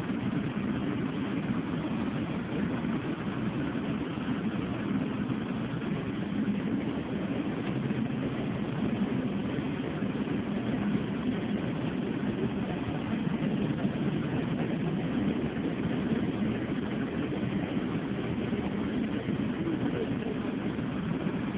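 Bus engine and road noise heard from inside the cabin while the bus drives along: a steady low rumble with no separate events.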